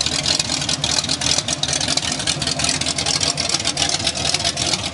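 Pontiac 389 V8 in a 1979 Firebird idling steadily through headers whose collectors feed into smaller-diameter pipes. The idle has a quick, choppy exhaust pulse, which the owner reckons sounds like a Ram Air IV cam.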